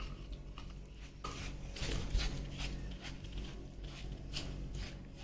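Silicone spatula scraping thick yogurt out of a plastic cup and pressing it into dry semolina in a bowl: soft, irregular scraping and squishing strokes.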